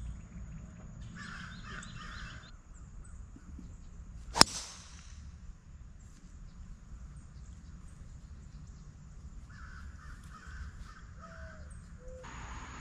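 Crows cawing in two short runs, and about four seconds in a single sharp crack of a golf driver striking the ball off the tee.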